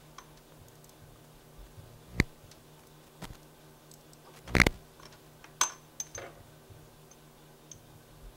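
Quarter-inch ratchet and 10 mm socket on a swivel working the water pump's mounting bolts: a few scattered sharp metal clicks and clinks, the loudest a short cluster about four and a half seconds in.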